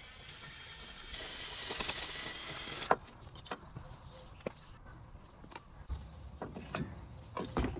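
Cordless impact wrench driving the forcing screw of a harmonic balancer puller for about two seconds, ending in a single sharp crack. After that come scattered metal clinks and knocks as the puller and balancer are handled, with a louder knock near the end.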